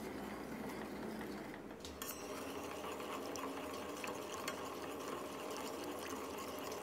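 Metal ladle stirring a thick, simmering sweet fish sauce syrup in a stainless steel pot. Light scrapes and a few faint clinks of the ladle against the pot.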